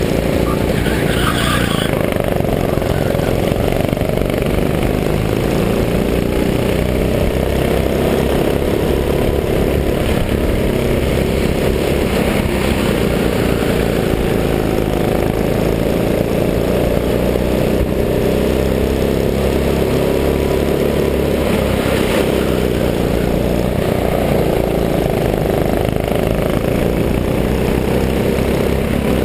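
Go-kart engine running at speed, heard from a helmet-mounted camera, its revs rising and falling through the corners. A short hiss about a second in.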